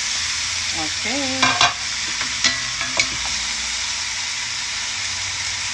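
Chicken pieces sizzling as they fry in hot oil and butter with sautéed onion and garlic, a steady sizzle, with a few sharp knocks of a utensil against the pan as it is stirred.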